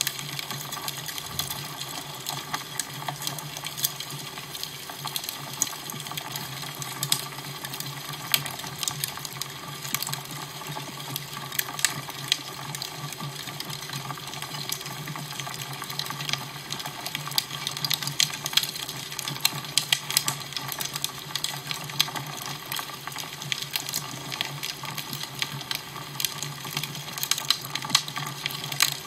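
Fire crackling: irregular sharp pops and snaps, many each second, over a steady hiss, with a low hum underneath.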